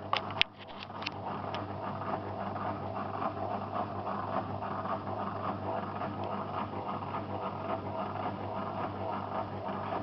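Zanussi FL984CN front-loading washing machine running: an even hiss over a low hum, with a few sharp clicks in the first second and a half.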